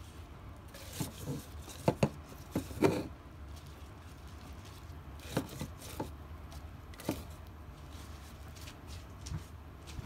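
Basil leaves being dropped and pressed by hand into a blender jar: a scatter of light knocks, clicks and rustles, a cluster of them about two to three seconds in and a few more later, over a faint steady low hum.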